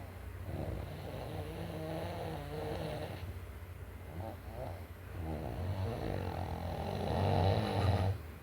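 Snoring in sleep: two long snores, each about three seconds. The second is louder and cuts off sharply near the end.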